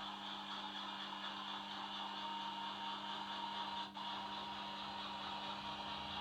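DCC sound decoder in a Hornby Class 50 OO gauge model locomotive playing a Class 50 diesel engine running, through the model's small onboard speaker: a steady drone. A thin steady whine joins about two seconds in, and the sound briefly drops out about four seconds in.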